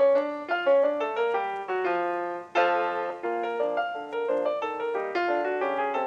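Background piano music: a quick run of notes, several a second, with a loud chord about two and a half seconds in.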